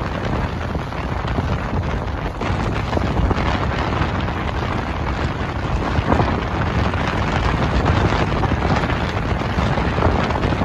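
Storm wind buffeting the microphone in a loud, steady rumble, over choppy water slapping against a half-sunken boat's hull.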